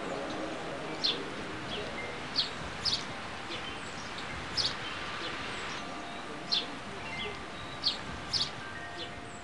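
Small birds chirping: about ten short, sharp, high chirps, a second or so apart, over a steady outdoor hiss.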